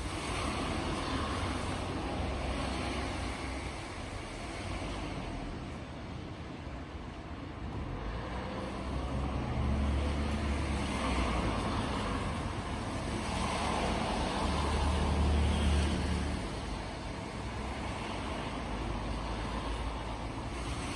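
Steady outdoor background noise with a low rumble that swells and fades twice, about midway through and again a few seconds later.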